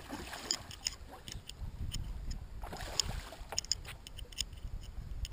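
A hooked fish thrashing and splashing at the water surface beside the boat as it is brought to the landing net, in short irregular splashes, over a low rumble of wind on the microphone.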